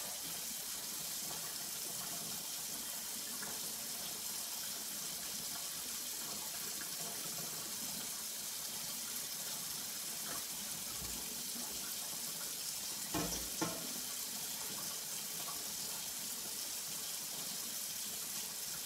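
Kitchen tap running steadily into the sink, with a couple of brief knocks about two-thirds of the way through.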